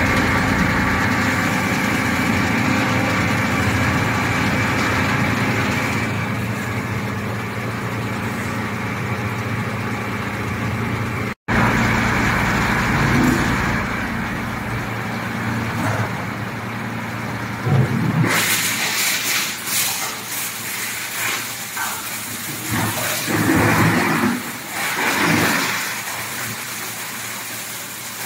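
Plastic bottle granulator with a 37 kW motor running: a steady machine hum with several held tones, briefly cut off about 11 seconds in. From about 18 seconds in, uneven louder bursts of noise come over the hum.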